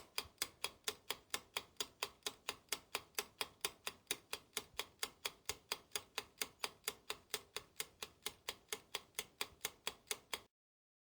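Clock ticking sound effect: sharp, even ticks about four a second, which stop abruptly about ten and a half seconds in.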